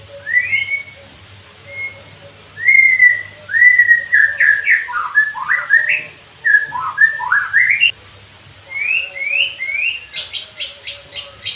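White-rumped shama (murai batu) singing: a string of loud whistled phrases gliding up and down. Near the end comes a fast run of sharp, repeated notes, about six a second.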